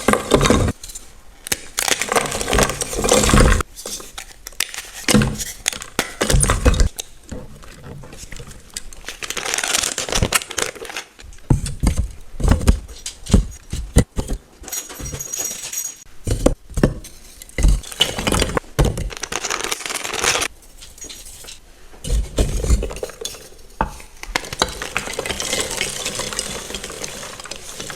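Soft, crunchy chalk being crushed and crumbled in a bowl: irregular crunches and crackles, with clinks against the bowl.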